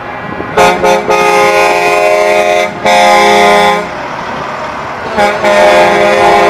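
Semi truck's air horn sounding in a string of blasts: two short toots about half a second in, a long blast to nearly three seconds, another to about four seconds, then a short toot and a long blast near the end. Steady truck engine noise runs between the blasts.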